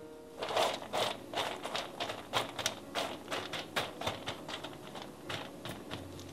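Chopped pecan pieces being spread by gloved hands across parchment paper on a metal baking sheet: a quick run of dry scrapes and clicks, about three or four a second, growing fainter toward the end.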